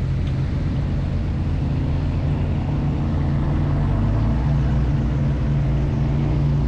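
Airboat's engine and large air propeller running steadily, growing a little louder about four seconds in.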